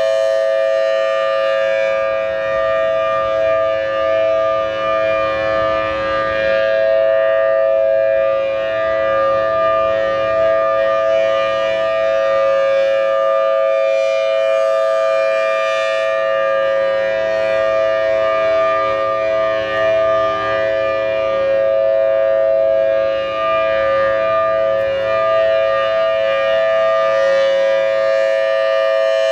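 Federal Signal Thunderbolt 1000T outdoor warning siren sounding a steady alert: a loud two-note chord held at constant pitch, its loudness wavering slightly.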